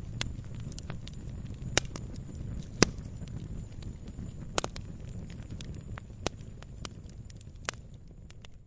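Wood fire burning in a fireplace: sharp crackles and pops, five of them louder, over a low steady rumble of flame. It fades down near the end.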